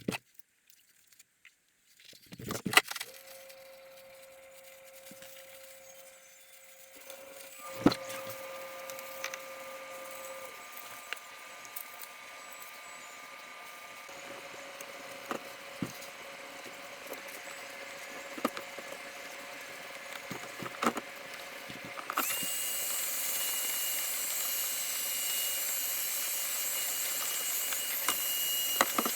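A small power tool running in a workshop, with scattered sharp knocks. About three quarters of the way through it gives way to a louder hiss with a high steady whine.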